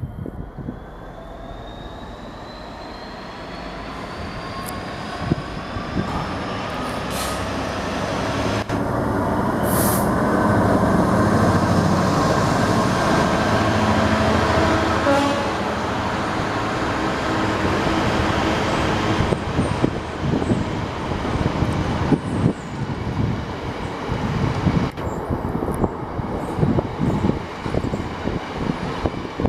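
Class 66 diesel freight locomotive, its two-stroke V12 diesel engine running under power, the note rising in pitch over the first few seconds and getting louder as it comes past. In the second half the freight wagons rumble by with uneven knocks from the wheels.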